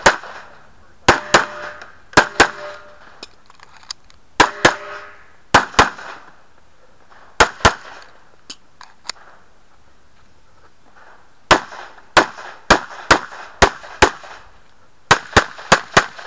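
Semi-automatic pistol firing about twenty shots, mostly in quick pairs, with a pause of several seconds near the middle. A short metallic ring follows a couple of the shots.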